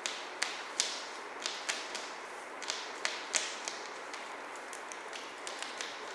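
Kittens batting a cat wand toy with foil streamers: a dozen or so irregular, sharp light taps and crinkles as paws strike the toy.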